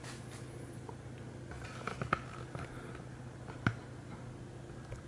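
Low steady hum with a few faint, sharp clicks or taps, two close together about two seconds in and one more a little past three and a half seconds.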